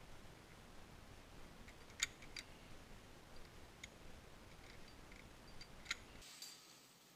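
Faint metallic clicks of via ferrata lanyard carabiners against the steel safety cable: a few sharp clicks spread over several seconds, the loudest about two seconds in.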